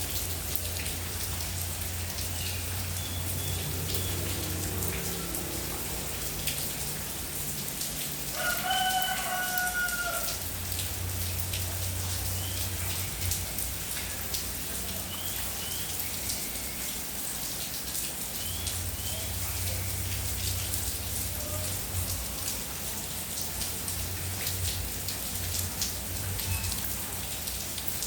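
Steady rain falling, with a rooster crowing once, one long call about a third of the way in, and a few faint short bird calls.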